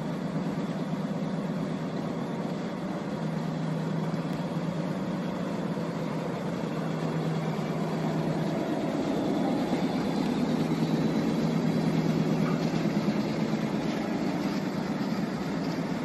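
Belt conveyor on a rail-mounted travelling carriage running: a steady mechanical hum with a low drone, growing a little louder around the middle.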